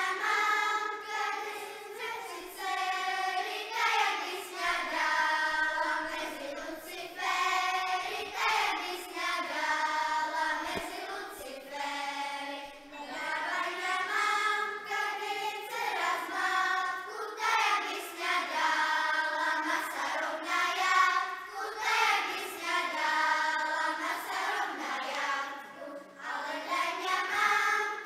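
A children's choir singing together in long phrases that rise and fall.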